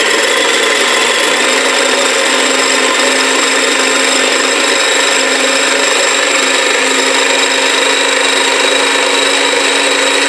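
Small electric blender (mini chopper) switching on and running steadily, its blade chopping garlic cloves, hot peppers and thyme into a chunky seasoning paste.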